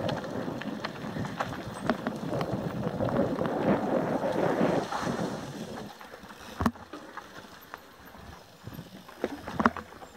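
Mountain bike descending a dirt trail, heard from the bike itself: the tyres roll and rattle over dirt and loose stones, and wind buffets the microphone. The noise eases off about halfway through. A few sharp knocks come from the bike hitting bumps, one about two-thirds of the way in and two close together near the end.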